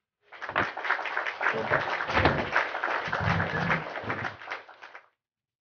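Plastic protein-powder packaging crinkling and rustling as it is handled, a dense crackle that fades out near the end.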